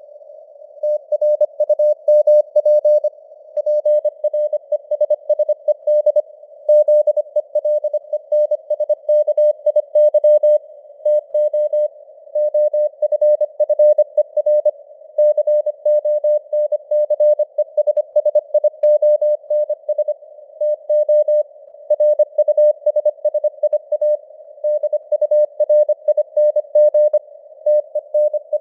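Morse code (CW) sent at 25 words per minute: a single mid-pitched tone keyed on and off in rapid dots and dashes, with short pauses between words, over a faint hiss of simulated radio noise.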